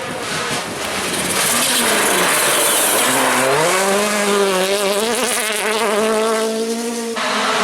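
Rally car engine at racing revs, over a steady hiss of tyres and gravel. The revs dip, then climb sharply about three seconds in and hold high. Near the end the sound cuts suddenly to another engine.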